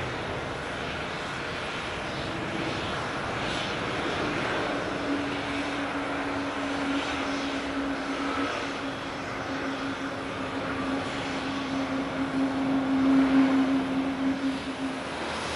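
Jet airliner engines running, with a steady low hum that comes in about five seconds in, swells to its loudest near the end and then stops, over a steady hiss.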